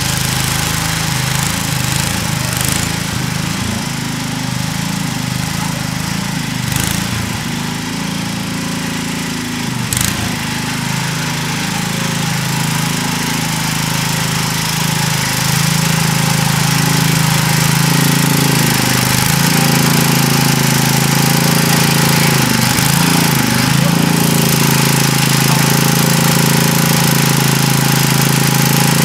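Sears ST 16 garden tractor engine running steadily, dipping briefly about ten seconds in and getting louder from about sixteen seconds on.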